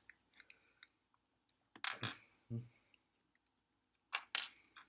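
LEGO pieces being handled and clicked together: a few sharp plastic clicks and clatters, in clusters about two seconds in and again near four seconds.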